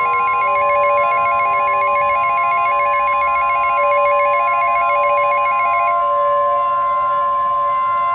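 Weather-radio 1050 Hz warning alarm tone: a loud, steady high beep. For about the first six seconds a rapidly trilling electronic alert chime, like a phone ringer, is layered over it. The tone announces an incoming tornado warning.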